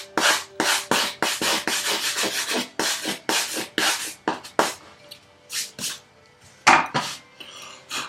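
Stiff bristles of a file card brushed quickly back and forth across a metal file, about four or five short scratching strokes a second, clearing wood dust out of the file's teeth. The strokes thin out about halfway through and pause briefly before a few more.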